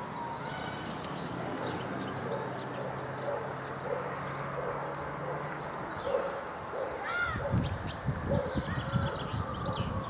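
Small songbirds chirping and twittering with a low steady hum underneath that fades out about six seconds in. Near the end comes a quick run of sharp knocks and taps.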